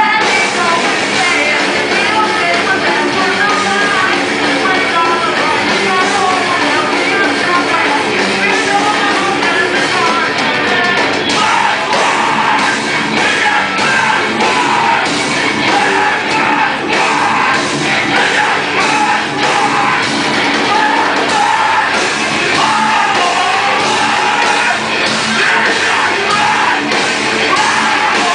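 Rock band playing live, loud and dense, with singing over guitars and drums; the drum beat comes through more plainly from about a third of the way in.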